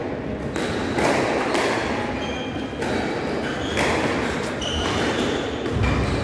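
A squash rally: the rubber ball struck by rackets and smacking off the walls in quick, irregular knocks, with short squeaks of court shoes on the wooden floor between hits.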